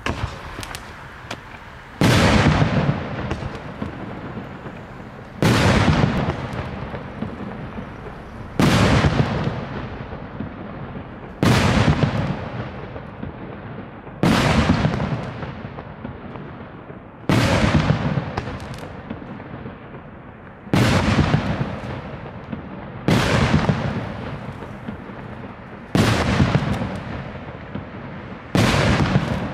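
A 36-shot 2-inch (50 mm) mortar firework cake firing its shells one at a time, about every three seconds. Each shot is a sudden loud bang that fades out over a second or two, ten in all, with a few small pops just before the first.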